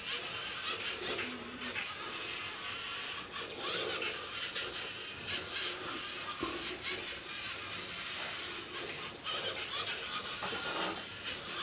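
LEGO Mindstorms NXT robot's servo motors whirring as it drives along the line and steers, with a steady hiss and scattered light clicks.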